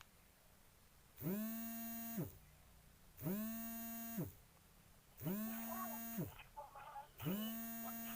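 A mobile phone vibrating for an incoming call: four buzzes about a second long, two seconds apart, each rising in pitch as the vibration motor spins up and falling as it stops.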